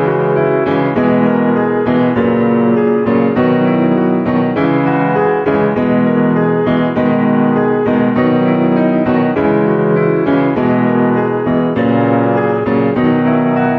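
Background music led by a piano, with new notes or chords about once a second and no break.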